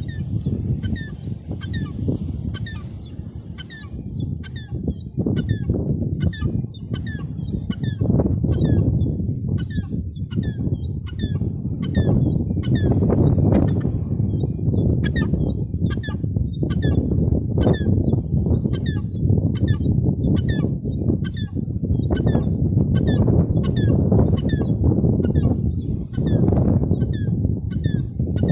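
Gulls calling over and over, many short calls following each other, over a loud low rumble.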